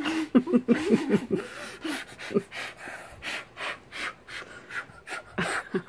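A child's voice warbles briefly, then gives way to a string of short, breathy puffs of air blown through pursed lips. It is a failed attempt to whistle, and no whistle tone comes out.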